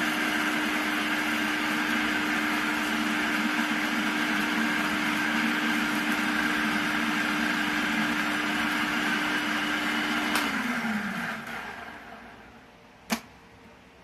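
Electric food processor running steadily as it chops dehydrated green onions toward powder, then switched off about ten seconds in, its motor whine falling in pitch as it winds down. A single sharp click comes near the end.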